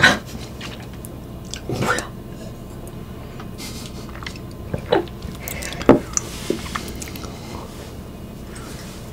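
Close-miked eating and drinking sounds: a few scattered wet mouth clicks and swallows. A sharp click right at the start is the loudest.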